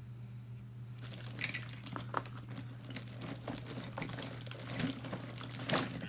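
Crinkling and rustling of packaging being handled, a rapid irregular crackle that starts about a second in, over a steady low hum.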